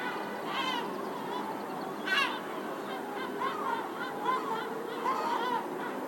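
Birds calling in short, arching cries over the steady hum of a city, with the loudest cry about two seconds in.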